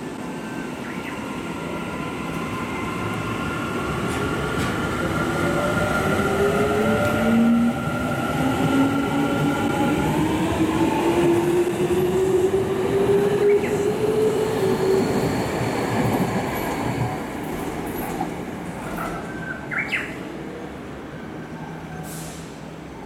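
Tokyu 5080 series electric train pulling out of the station. Its inverter and traction motors whine up in pitch as it gathers speed over the rumble of the wheels. The sound grows louder and then fades as the train leaves.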